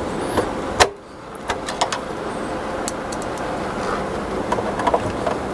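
A screwdriver driving small machine screws into a DAC chassis: scattered sharp metal clicks and ticks over a steady background noise.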